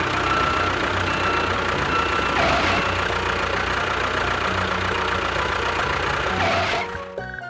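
A vehicle engine running steadily, with a faint high whine over it, until it stops about seven seconds in.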